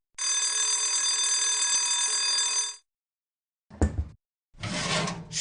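Cartoon oven timer ringing steadily for about two and a half seconds, a signal that the muffins are done. It is followed by a short clunk of the oven door and a hiss of steam near the end.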